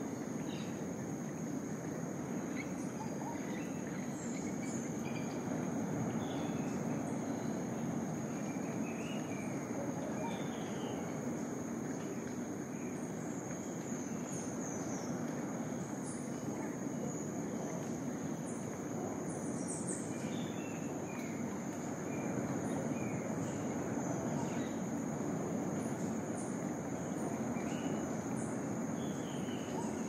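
Rainforest ambience: one insect holds a steady, high-pitched drone throughout, with many short bird chirps scattered over it, all above a constant low rushing noise.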